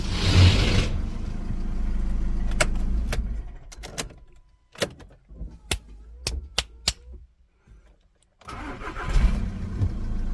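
A Volkswagen Golf's engine runs, then dies away after about three seconds. A series of about eight sharp clicks follows, then a brief hush, and the engine starts again about eight and a half seconds in, as the ignition switch is tried on the key.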